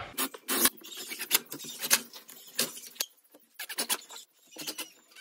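Scattered sharp clicks and knocks, about a dozen at irregular intervals, from hand work with a cordless driver and screws under a wooden tabletop.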